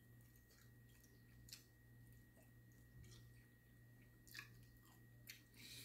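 Faint chewing and wet mouth smacks of someone eating honey barbecue chicken wings, with a few soft smacks about a second and a half in and again near the end, over a low steady hum.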